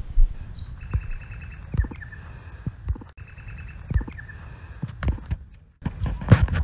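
Footsteps on dry grass and dirt, dull thumps about once a second, with a bird's rapid high trill repeated twice in the background.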